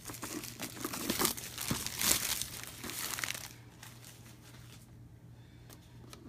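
Plastic wrapping on a board-game box crinkling and tearing as it is cut open with a knife and peeled off. The crackling dies down after about three and a half seconds, leaving a couple of faint clicks.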